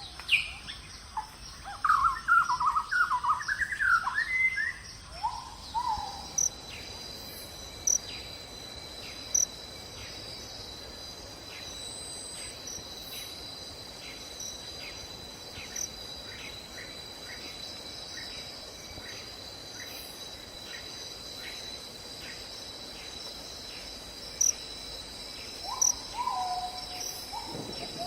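Bird calls: a quick run of chirping notes in the first few seconds, then short falling whistled notes, heard again near the end, over a steady high trilling of insects.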